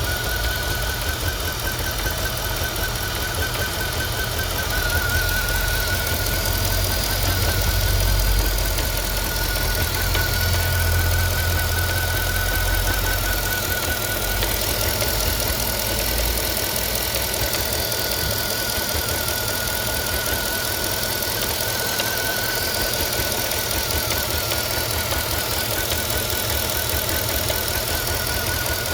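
Mercedes W221 S500's M273 5.5-litre V8 running with an irregular, non-rhythmic clattering heard all over the engine, over a wavering high whine, with a deeper drone swelling for a while early on. The cause is undiagnosed; the owner wonders about a broken lever on the variable intake manifold or the cooling system.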